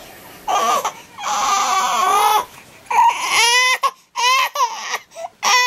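Newborn baby crying in a string of about five wails with short breaks between them.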